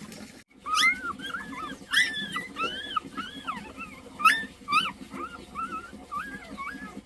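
A dog whimpering and yipping in a quick series of short, high, rising-and-falling whines, about two or three a second, with a few louder yelps.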